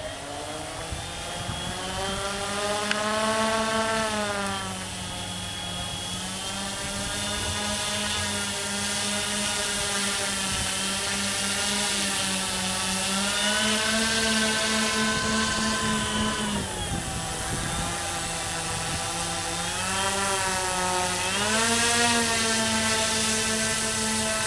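Twin-engine radio-controlled model Cessna's motors and propellers running while it taxis, the pitch rising and falling several times as the throttle is worked, with a dip about two thirds of the way through and a rise near the end.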